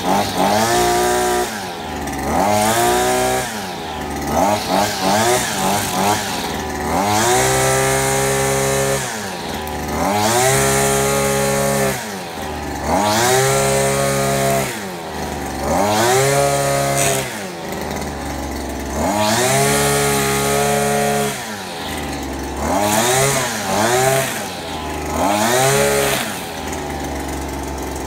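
Blade Alpin 520 brushcutter's 52 cc two-stroke engine revved up and let fall back toward idle about ten times, each burst held for a second or two, as its line-trimmer head cuts grass.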